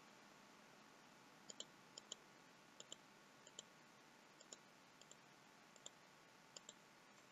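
Faint clicks of a computer mouse button, about eight of them, spaced roughly half a second to a second apart. Several are heard as quick double ticks.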